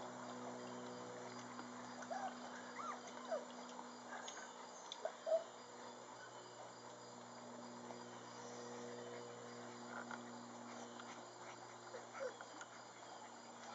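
Faint, brief squeaks and whimpers from six-week-old mastiff puppies, a handful in the first half and one near the end, over a steady low hum.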